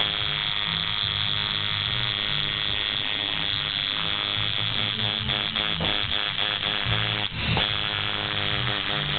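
Tattoo machine buzzing steadily, stopping briefly and starting again about seven seconds in, with background music and its bass line underneath.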